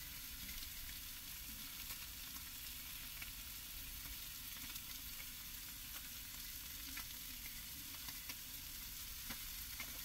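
Pejerrey fillets frying in olive oil and garlic in a small iron pan: a steady sizzle with occasional small pops.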